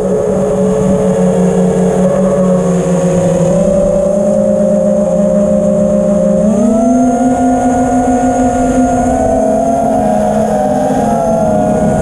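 FPV quadcopter's brushless motors and propellers whining in flight, heard from the onboard camera. The pitch holds steady, steps up about six and a half seconds in as the throttle rises, then wavers near the end as the quad manoeuvres.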